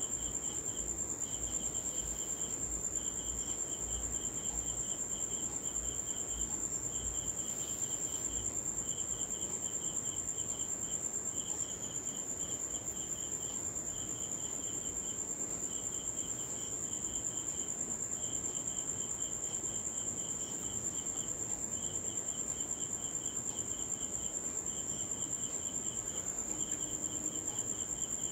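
Crickets chirping in short trains of rapid pulses with brief gaps between them, over a steady high-pitched whine.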